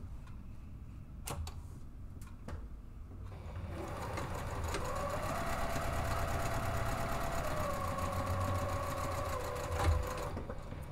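Juki sewing machine stitching a seam, running steadily from about four seconds in and stopping shortly before the end. Before it starts, a few light clicks as the fabric is positioned under the presser foot.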